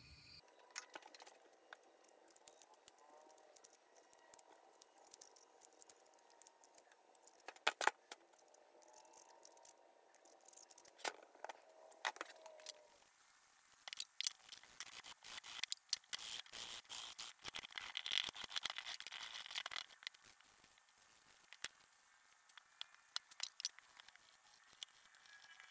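Light metallic clicks and rattles as a drill press pulley bearing assembly is handled and turned. About halfway through comes a stretch of scratchy scrubbing as a small brush works acetone into the bearings, then scattered clicks again.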